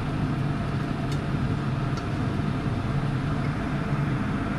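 A steady low hum with a hiss over it and a couple of faint ticks, from a lidded wok of cola chicken wings simmering on a gas burner as the sauce reduces.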